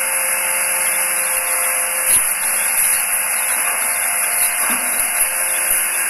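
Rear-loading garbage compactor truck running steadily, a hiss-like machine noise with faint steady tones, and a couple of faint knocks as bins are handled at the hopper.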